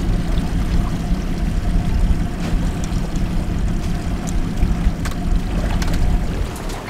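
Boat motor running steadily at trolling speed, a low even hum with wind rumbling on the microphone.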